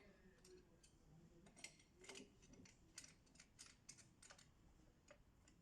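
Faint, irregular light clicks, about fifteen of them bunched through the middle few seconds, over near silence.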